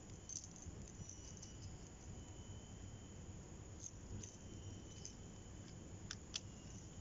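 Quiet outdoor ambience with a faint, thin high insect buzz, and a few light clicks from a fishing reel and line being handled while a line tangle is cleared. Two sharper clicks come close together near the end.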